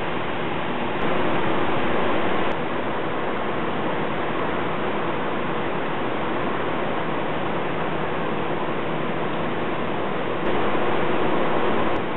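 Steady rushing of turbulent water pouring out below a hydroelectric dam, jumping suddenly louder twice for a second or so.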